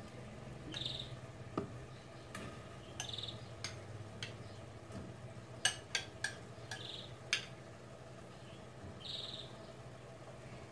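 A spoon clicking against a steel pot as barley grits are stirred in with sautéing onion: a scatter of light knocks, a few in quick succession about six seconds in. Four short high chirps come through, about two to three seconds apart.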